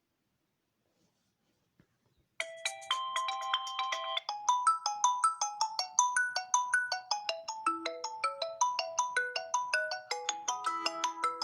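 Ringtone melody played through the Redmi 6A phone's loudspeaker during a speaker test: a fast run of short, bright notes that starts about two seconds in.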